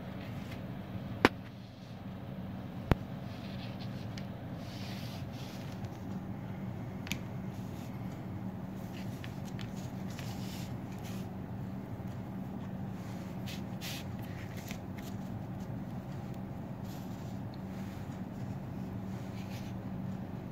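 Cardboard jigsaw puzzle pieces being handled and fitted together on a tabletop: soft scattered taps and rustles over a steady low hum, with two sharp clicks in the first few seconds.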